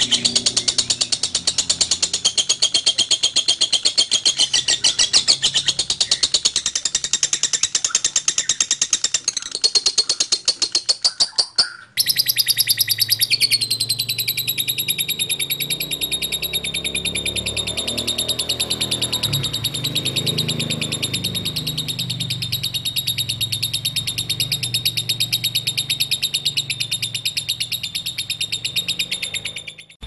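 Fischer's lovebirds singing a long, unbroken chatter of rapid high notes, the drawn-out song lovebird keepers call ngekek. About twelve seconds in it breaks off abruptly and another bird's chatter takes over at once.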